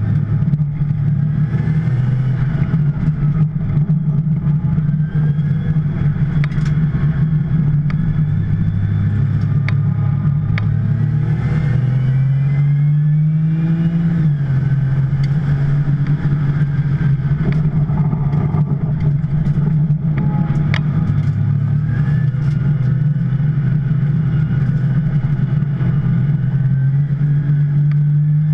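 A 2010 Porsche 911 Turbo's twin-turbo flat-six is running hard on track under race load, its pitch climbing and falling. Its note rises steadily about halfway through, then drops at a gear change.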